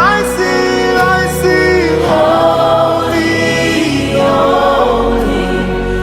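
Gospel worship music: a choir singing sustained, sliding vocal lines over a steady bass and keyboard backing.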